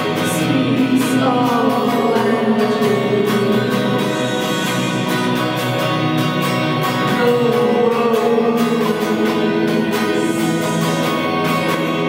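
A woman sings a slow, drawn-out melody over a Fender electric guitar played with a capo. The song is recorded only through a camera's built-in microphone.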